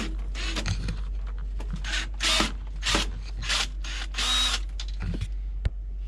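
Cordless drill/driver run in several short bursts of about half a second each.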